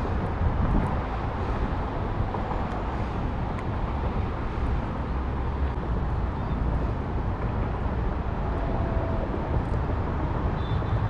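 Steady rush of water pouring over a small concrete spillway, an even, unbroken noise.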